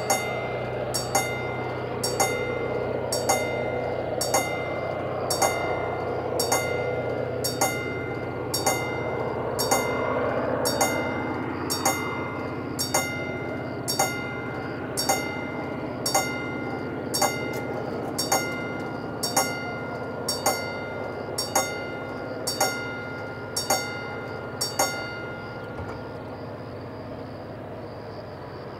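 Railway level-crossing warning bell striking about once a second, each strike ringing on, until it stops about 25 seconds in. Underneath is a steady low rumble that swells and then fades.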